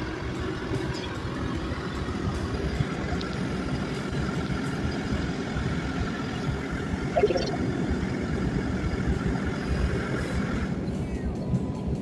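Steady cabin noise of a Bombardier airliner with its engines running: a low rumble with a faint steady whine over it. The whine and the higher part of the noise drop away near the end.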